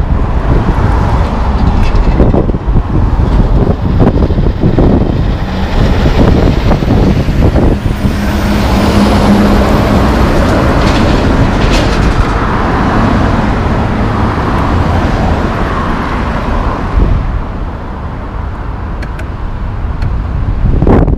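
Road traffic passing through a city intersection. About halfway through, a heavy tanker truck drives close by, its engine giving a steady low hum over the tyre and traffic noise.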